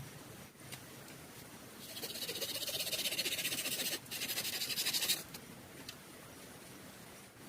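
An animal's high, rapidly pulsed buzzing call, lasting about three seconds with a brief break partway through, over a faint steady background hiss.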